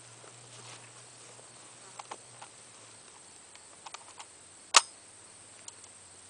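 Vector Arms Uzi 9mm carbine being handled: a few light clicks, then one sharp metallic clack from its action about three-quarters of the way in.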